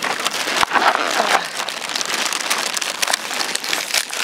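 Campfire crackling and popping in quick, irregular snaps, with a plastic cookie packet crinkling as it is handled.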